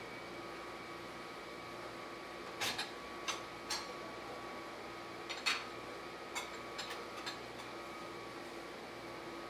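Dishes and cups clinking as they are set down on a metal dish-return rack: a string of about eight short clatters between about two and a half and seven and a half seconds in, over a steady machine hum.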